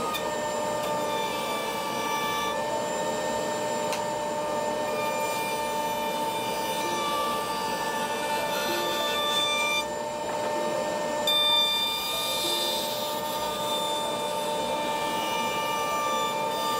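Router table running with a steady high whine while a walnut board is fed against the cutter, its edge trimmed to a curved template; the cutting noise swells briefly about two-thirds of the way through.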